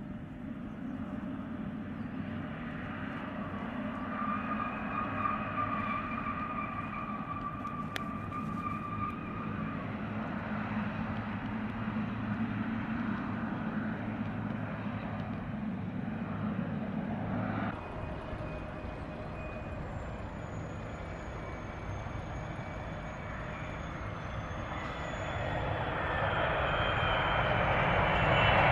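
Boeing 777 jet engines running steadily as the airliner rolls along the runway, with held tones in the engine noise. After an abrupt cut about two-thirds of the way through, a second 777's engine noise comes in with a thin high whine and grows much louder toward the end.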